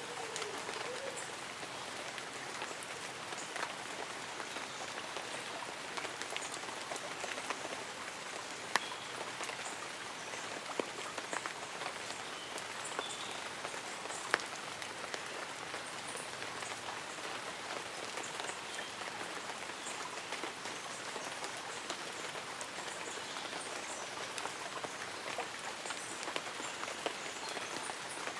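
Light rain falling on tree leaves and an umbrella: a steady patter with scattered sharper drops, and a few faint bird chirps in the middle.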